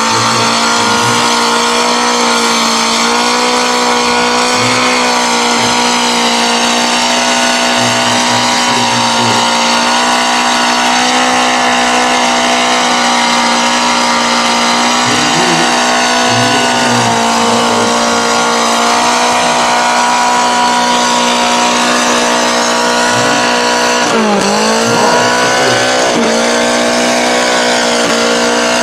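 Suzuki Samurai mud truck's engine held at high, steady revs as it churns through the mud on tall tractor tires. Late on, the revs drop sharply twice and climb straight back.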